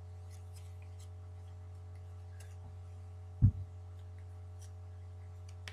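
Faint clicks and light handling noise of paper trading cards being turned over, over a steady low electrical hum, with one loud low thump about three and a half seconds in.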